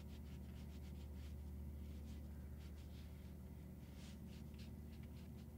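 A watercolor brush laying a wash across watercolor paper: faint, irregular soft scratches of the bristles on the paper, over a steady low hum.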